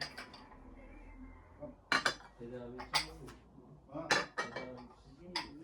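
Dishes and cutlery clinking: about half a dozen separate sharp clinks.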